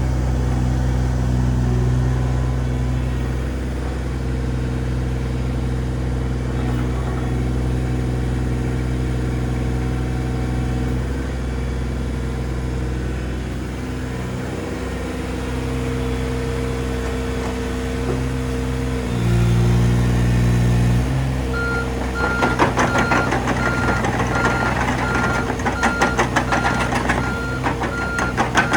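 Komatsu PC26 MR-3 mini excavator's three-cylinder diesel engine running steadily, its pitch shifting for a couple of seconds about two-thirds of the way in. Over the last seven seconds a travel alarm beeps at a steady rate, about twice a second, over a rattling clatter from the steel tracks as the machine moves.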